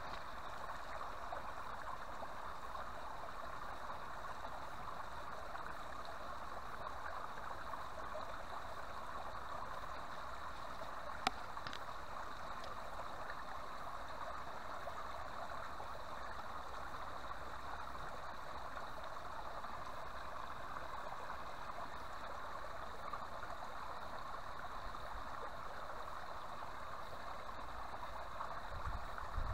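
A small countryside stream trickling and babbling steadily over its stony bed. There is one brief sharp click about eleven seconds in, and a low rumble of wind on the microphone near the end.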